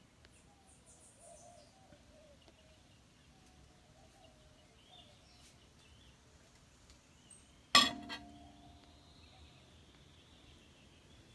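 Quiet garden ambience with faint bird chirps, broken about eight seconds in by one loud, sharp clink that rings briefly.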